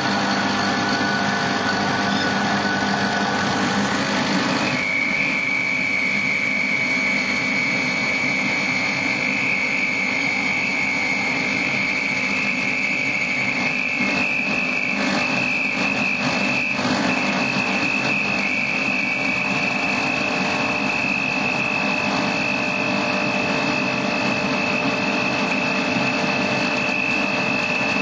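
E61-group espresso machine's pump running steadily under load while pulling an espresso shot. A high steady whine joins about five seconds in and steps up slightly in pitch around the middle.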